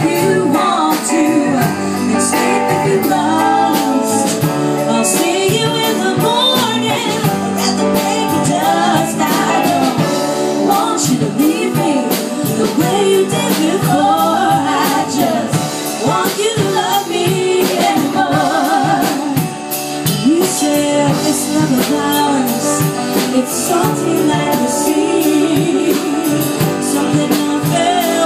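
Live band performing a song: a woman sings lead while strumming an acoustic guitar, with a second guitar and steady percussion hits.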